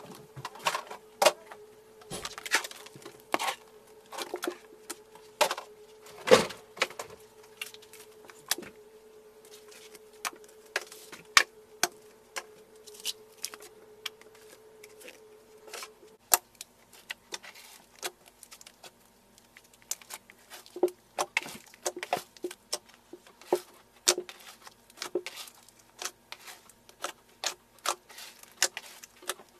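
Thick slime being pressed, poked and squished by hand in a pot, giving irregular sharp pops and clicks.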